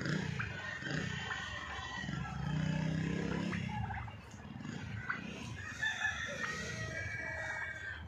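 Rooster crowing, with chickens clucking.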